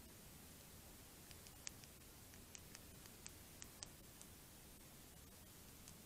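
Faint, irregular crisp clicks of a North American porcupine chewing seed from a feeder tray, over a steady microphone hiss. The clicks come in a loose cluster from about a second in until past the middle.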